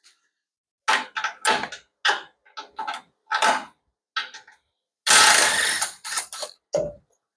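Hand tools on metal: a socket ratchet clicking and clattering in short, irregular strokes, with a longer rattle about five seconds in.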